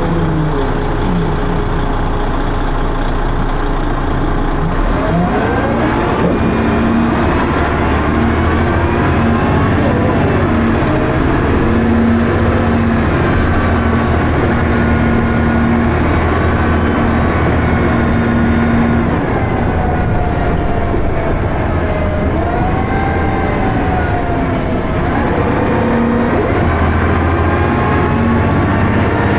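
Dennis Arrow bus heard from on board: the diesel engine and ZF automatic gearbox running under way, with whining tones that rise and fall several times as the bus accelerates and changes gear.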